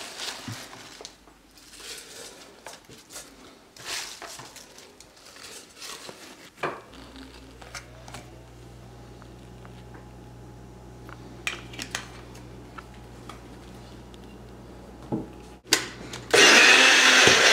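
Spinach leaves rustling and a plastic personal-blender cup being handled with light clicks and knocks, over a faint steady low hum. About a second before the end, a personal blender starts suddenly and loudly, chopping spinach, shredded cheddar and olive oil.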